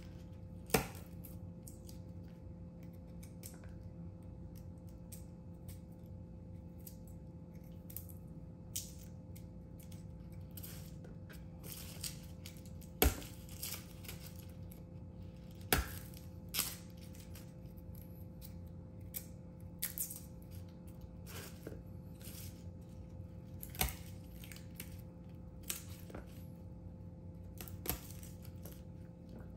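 Garlic cloves being peeled and trimmed by hand: scattered light clicks, taps and papery tearing every second or two, over a steady low hum.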